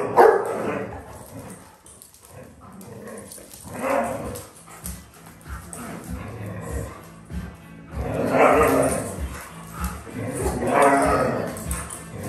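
Dogs play-fighting, growling and barking in several loud bursts, over background music with a steady beat.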